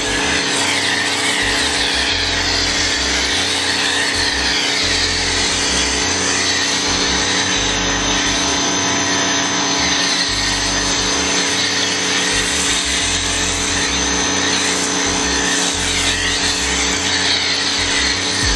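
Electric pressure washer running steadily with a motor hum, driving a foam cannon that sprays car-wash foam with a steady hiss.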